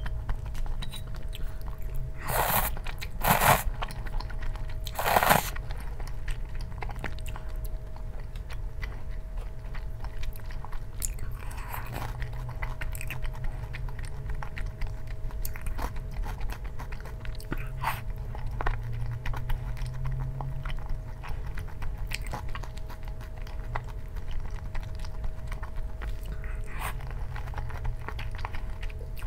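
A person eating: three loud crunching bites in the first several seconds, then softer chewing with many small clicks.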